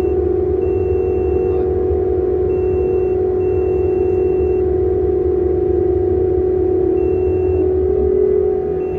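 Steady drone of heavy cargo-handling machinery during coal loading: a low hum with a strong, steady mid-pitched tone. A thin high tone switches on and off irregularly over it.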